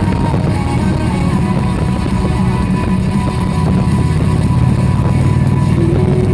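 Guitar music over a steady low rumble of vehicle road noise.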